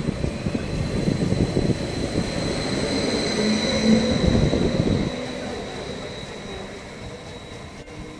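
Srbija Voz Stadler FLIRT electric multiple unit running past along the platform: wheel and track rumble with a high electric whine from its traction drive, loudest about four seconds in and fading after about five seconds.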